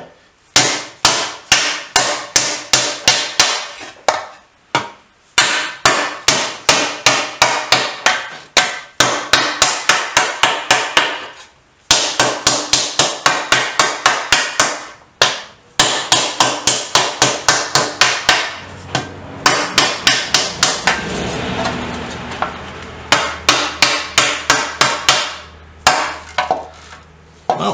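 A red teardrop-headed mallet beating aluminium sheet over the hollow of a wooden stump. The rapid blows come about four a second, in runs broken by brief pauses. It is tuck shrinking, hammering closed the tucks along the panel's edge to shrink and curve it.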